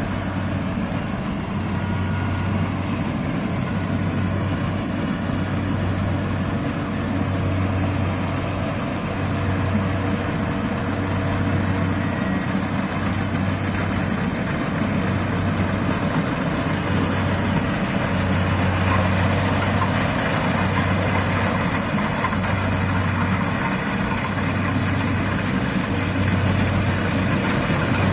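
Kubota Harvest King combine harvester running steadily as it cuts standing rice. A low throb pulses about every second and a half, and the sound grows slightly louder near the end as the machine comes closer.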